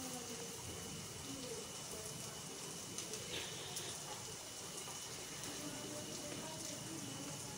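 Boiled potatoes being crushed by hand on a steel plate: faint soft squashing and a few light taps about three seconds in, over a steady hiss and a thin high whine.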